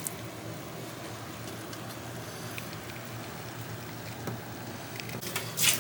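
A pot of chicken, potatoes and rice sizzling with a steady low hiss on the stove, with a few light taps. A brief louder rustle comes near the end.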